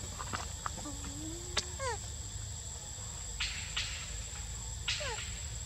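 Steady high-pitched drone of forest insects, with a few short falling chirps about two seconds in and again near the end, and some short soft rustles.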